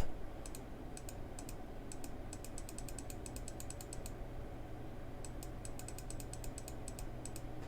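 Computer keyboard keys tapped in quick runs, a couple of bursts of rapid keystrokes, over a steady low hum.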